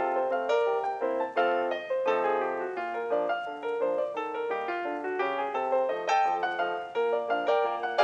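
Background music: a light piano tune, its notes struck about twice a second in a steady rhythm.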